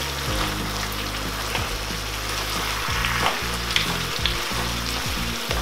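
Goat feet sizzling in a frying pan while being stirred with a wooden spoon, the spoon giving a few soft knocks and scrapes through the meat.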